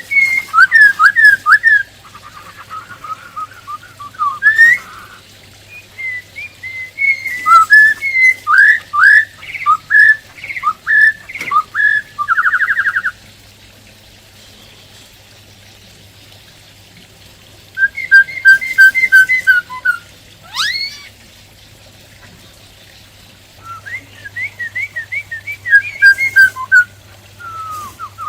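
Black-throated laughingthrush singing loud phrases of quick whistled notes that sweep up and down. The song breaks off for about four seconds in the middle, then resumes. A low steady hum runs underneath.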